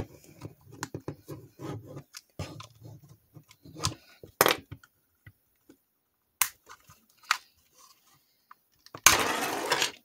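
The plastic clips of an Xbox One controller's side grip panel clicking and creaking as a small flathead screwdriver pries along the seam, sounding as if they are breaking. A louder crackling snap near the end as the panel comes free.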